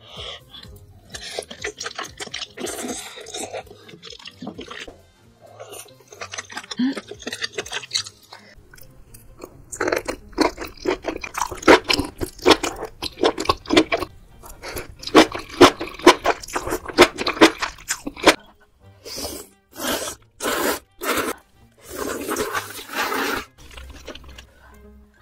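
Close-miked eating of spicy seafood hot pot: wet chewing and crunching in quick runs, loudest and densest in the middle, then a few separate louder mouth sounds near the end. Faint background music underneath.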